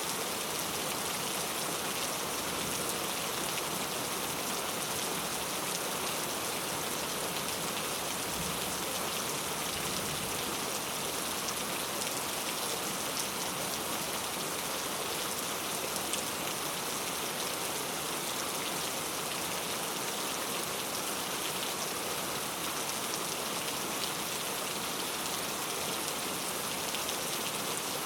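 Steady rain falling, a dense even hiss of raindrops with fine scattered drop ticks.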